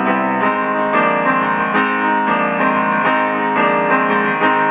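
Electronic keyboard playing an instrumental passage of steady piano-like chords in an even rhythm, with no singing.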